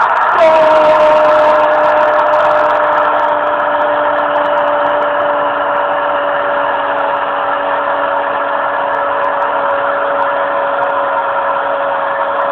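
A broadcast commentator's long drawn-out goal cry: one held note that starts about half a second in and sags slightly in pitch over about thirteen seconds, over a stadium crowd cheering.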